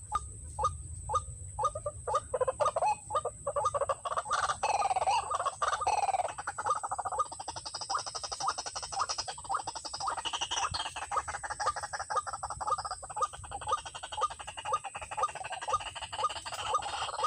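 White-breasted waterhen (ruak-ruak) calling: repeated harsh notes, spaced at about two or three a second at first, then running together into a fast stream of notes from about six seconds in.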